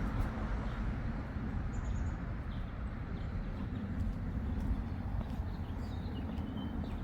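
Steady low outdoor rumble, with a few faint high chirps of small birds scattered through it.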